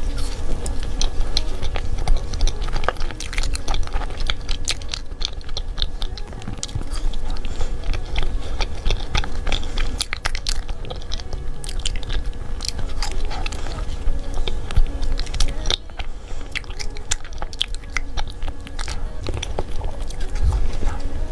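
Close-miked biting and chewing of a fruit-shaped mousse dessert, with many small, irregular crisp crackles and wet mouth sounds.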